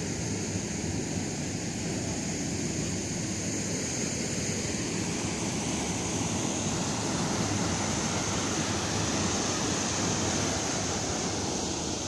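Steady outdoor wind noise on the microphone mixed with small waves lapping at the lake's edge, with a constant high-pitched hiss above it.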